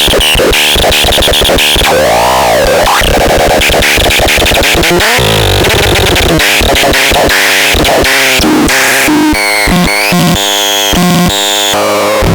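Harsh electronic noise and synthesizer tones from the SELTER sound device being demonstrated. Rapid stuttering pulses and a wavering pitch sweep about two seconds in give way to jumping, stepped tones in the second half, with brief dropouts near the end.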